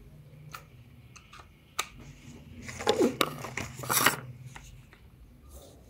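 A few sharp clicks, then about a second and a half of loud rustling and knocking from a hand handling things close to the microphone, three to four seconds in.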